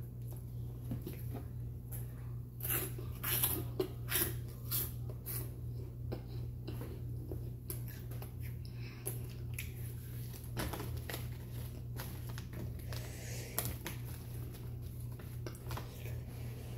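A boy chewing crunchy spicy chips: a run of crisp crunches, thickest a few seconds in and again about two-thirds of the way through, over a steady low hum.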